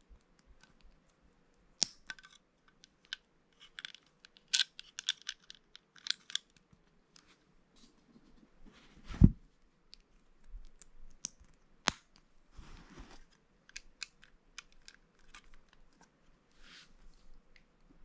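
Plastic Lego bricks clicking and clattering as pieces are handled and pressed together, in scattered sharp clicks with a few quick flurries. A dull thump about halfway through is the loudest sound.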